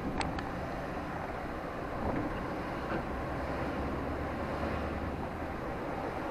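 Steady rumble of a car driving, heard from inside, with a sharp click just after the start.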